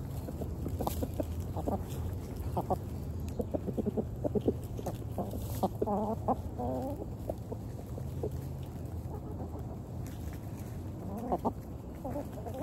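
Several hens clucking close by in short, scattered clucks, with one longer wavering call about six seconds in.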